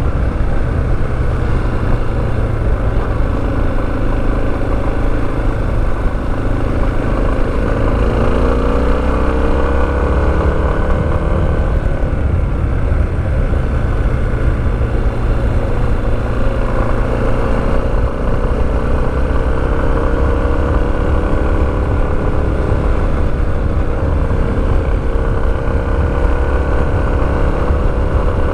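Motorcycle engine running while riding, its pitch rising and falling with the throttle and climbing noticeably about eight seconds in and again near twenty seconds in.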